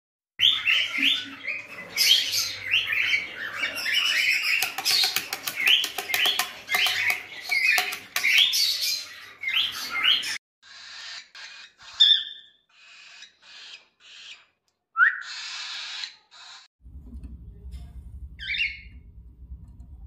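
Cockatiel chicks calling: rapid, rasping, upward-sweeping cheeps repeated over and over for about ten seconds, then sparser calls with a couple of sharp squawks. A low steady hum comes in near the end.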